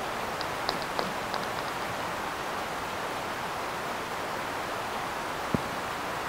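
Steady hiss from a microphone lowered down a borehole, with a few faint ticks in the first couple of seconds and a single sharper click about five and a half seconds in; the uploaders take such sounds for underground tunnel-digging work.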